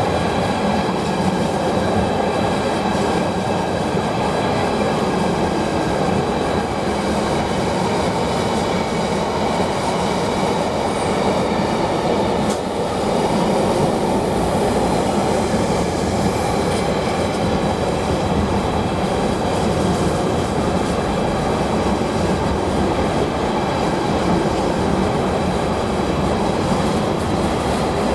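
A long GBRf freight train of wagons rolling steadily past, its wheels rumbling on the rails, with faint high ringing tones above the rumble.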